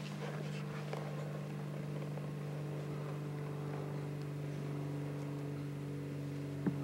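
Steady low mechanical hum, with a slightly higher tone joining it late on. Faint scattered rustles run through it, and there is a single sharp click near the end.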